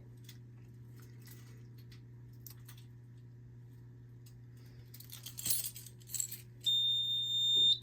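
A few light metallic clinks like keys being handled, then about a second of a loud, steady, high-pitched electronic beep from a fire alarm control panel's buzzer near the end, over a low steady hum.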